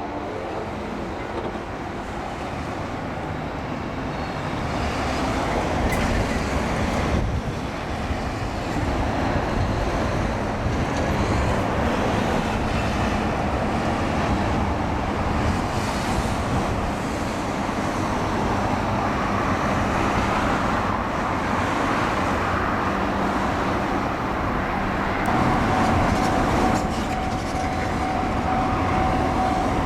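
A train running past on the line, a continuous rumble that builds over the first few seconds and then holds. A steady high tone joins near the end.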